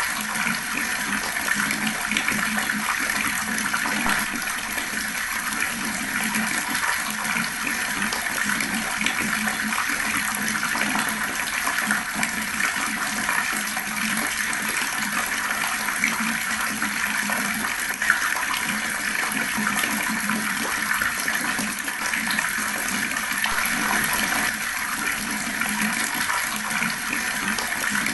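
Water running steadily from a tap in a slow, even flow, splashing without pause.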